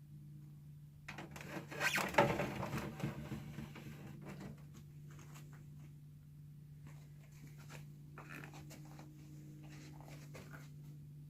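Hands handling a device and its packaging: a burst of scratchy rustling and scraping, loudest about two seconds in, then scattered light clicks and rustles. A steady low hum runs underneath.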